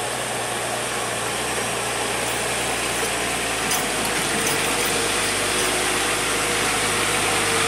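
Diesel engine of a Hino heavy truck pulling slowly up a steep gravel climb with a road roller loaded on its trailer, growing gradually louder as the truck approaches.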